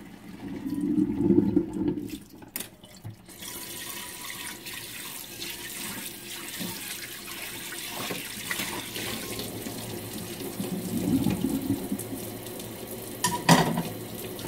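Kitchen tap running cold water into the sink while boiled glass noodles (dangmyeon) are rinsed under it, with louder sloshing in the first couple of seconds. A single sharp clank comes near the end.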